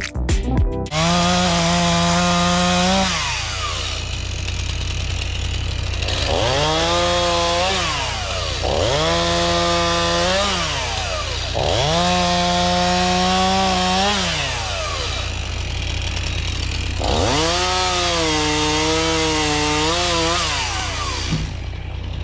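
Small engine revving up, holding, then dropping back, about five times over a steady low drone, typical of power equipment working brush. A short bit of music with a beat plays at the very start.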